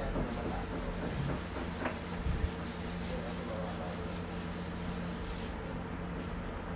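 Paintbrush rubbing and scrubbing against the canvas in short strokes, over a steady low hum.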